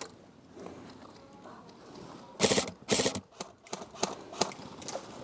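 Airsoft guns firing: two short bursts about half a second apart, followed by several single sharp pops.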